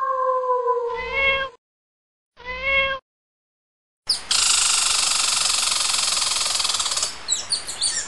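A cat's long drawn-out meow, its pitch sinking slightly, ends about a second and a half in, and a short meow rising in pitch follows. After a second of silence, a steady loud hissing noise lasts about three seconds, then gives way to short high chirps near the end.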